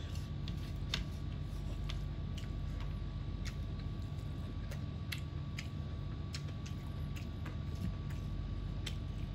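Close-up eating sounds of someone eating rice by hand: chewing and wet mouth clicks, irregular and about two a second, over a steady low hum.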